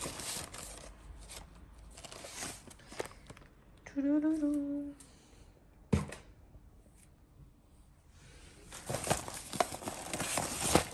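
White paper gift bags rustling and crinkling as they are pulled out of a burlap sack, with a short vocal exclamation about four seconds in and a single sharp knock about six seconds in. After a quiet stretch the rustling comes back louder near the end.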